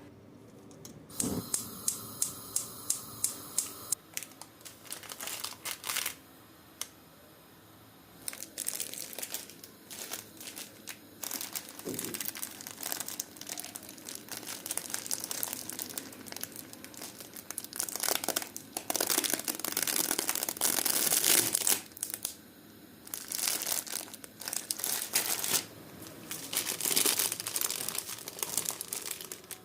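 Crinkling and rustling of something being handled, in irregular stretches with short pauses. It opens with a quick run of evenly spaced clicks, about four a second.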